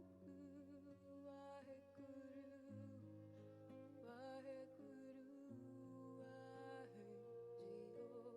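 Faint, gentle background music: sustained instrumental notes changing slowly, with a wavering sung voice coming in briefly about four seconds in.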